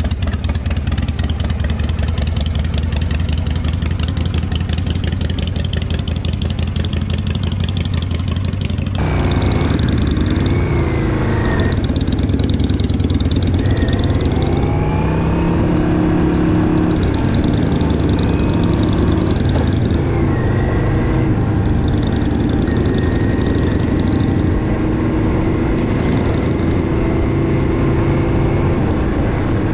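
Kawasaki Vulcan 400 V-twin motorcycle engine running, steady for about the first nine seconds, then its note rising and falling with the throttle.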